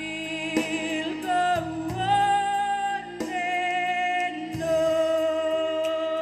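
Slow ballad music: a female voice holds long notes over an instrumental backing track.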